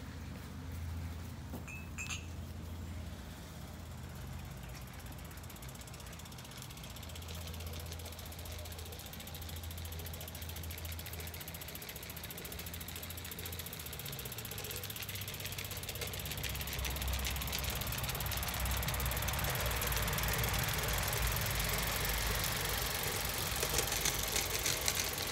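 Garden-scale model train running on outdoor track, its wheels and gearing making a fine, rapid mechanical clatter over a low hum. It grows louder from about two-thirds of the way through as the train comes close.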